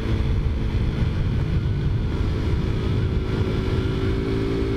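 Taotao Zummer 50cc four-stroke scooter engine running steadily at cruising speed while riding, under a heavy rumble of wind on the microphone. The engine note grows a little stronger near the end.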